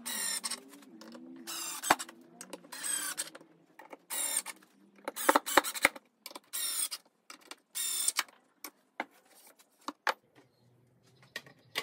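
Cordless drill driving screws into a pine tabletop in a string of short runs, about seven, with the motor whine changing pitch as each run starts and stops. After that, a few light knocks.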